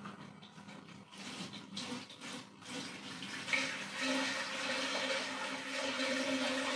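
Water poured from a 5-litre plastic bottle into a small glass aquarium, splashing onto a pad laid on the substrate as the new shrimp tank is filled. The pour starts uneven and becomes a steadier, louder stream about four seconds in.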